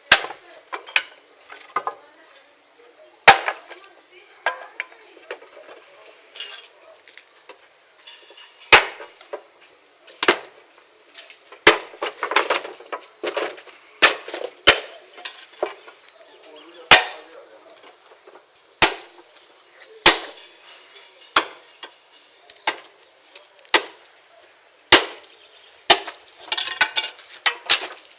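Wood bonfire crackling, with loud, sharp pops every second or two and bursts of small crackles between them.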